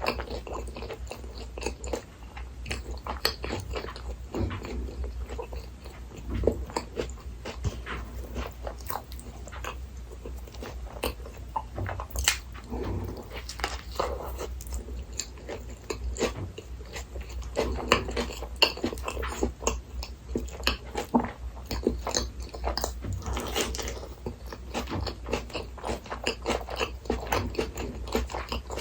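Close-miked eating of a Burger King Whopper set: steady, irregular bites and chewing, full of small clicky mouth sounds, over a low steady hum.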